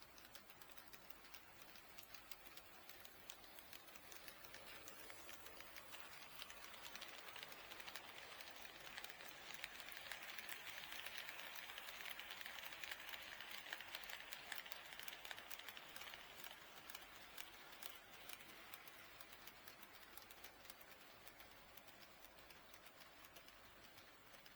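HO-scale model train running past on its track: a faint whirring of its motor and wheels with light rapid clicking, growing louder toward the middle and fading away again.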